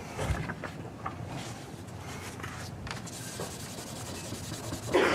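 Hand levelling of a cured drop-fill in a nitrocellulose finish: faint, irregular rubbing and scraping strokes of a blade or abrasive across the lacquer, with a brief louder burst right at the end.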